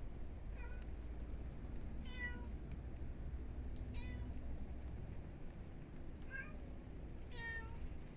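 A cat meowing five times in short calls spread a second or two apart, over a steady low rumble of wind.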